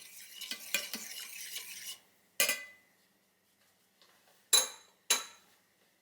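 A metal utensil scraping and clinking in a cooking pot for about two seconds, then three sharp clinks with a short ring, one about halfway through and two close together near the end.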